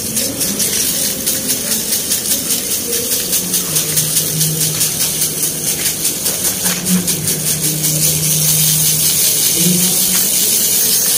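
Water from a hose pipe spraying onto a paved lane: a steady hissing splash that pulses about three times a second.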